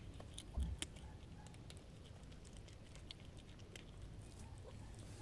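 Cats crunching dry kibble: irregular small, crisp clicks. A soft low thump comes about half a second in.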